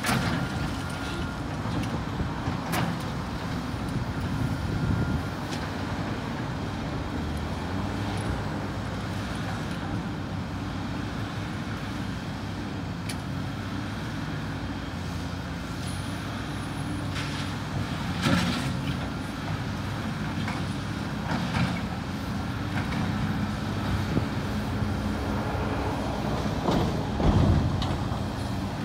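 Caterpillar 325C hydraulic excavator's diesel engine running steadily under working load as it swings and moves its bucket. A few sharp clanks sound over the engine, the loudest about two-thirds of the way through and again near the end.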